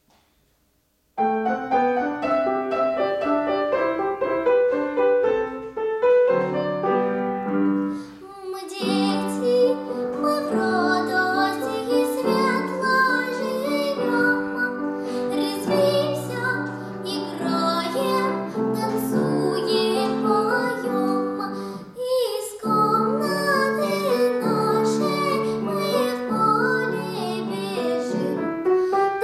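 Upright piano starting an introduction about a second in, then a young girl's voice entering about eight seconds in, singing in a classical, academic style over the piano accompaniment.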